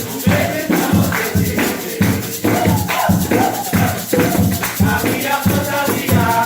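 Upbeat music with a fast, steady beat and shaker-like percussion.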